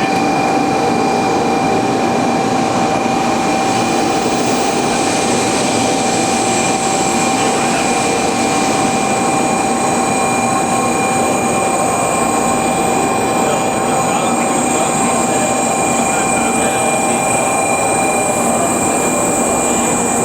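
Steady train running noise: a continuous rumble and hiss with constant high whining tones, unchanging throughout.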